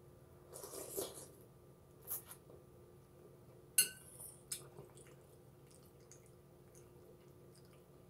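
Slurping chicken noodle soup off a metal spoon about half a second in, then a shorter slurp, a sharp clink of the spoon against the bowl near the middle, and faint chewing with small mouth clicks.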